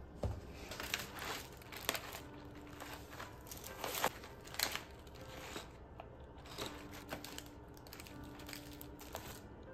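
Plastic carrier bag and foil snack packets rustling and crinkling as they are handled, in irregular bursts with a few louder crackles.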